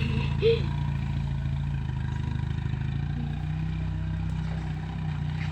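A vehicle engine running steadily, its hum rising slightly in pitch about three and a half seconds in.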